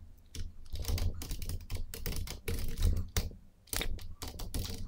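Typing on a computer keyboard: a quick, uneven run of keystroke clicks with a couple of brief pauses.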